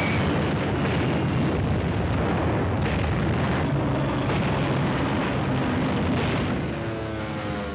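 Bomb explosions in a film soundtrack: a continuous heavy rumble, with sharper blasts about three, four and six seconds in. Music comes back in near the end.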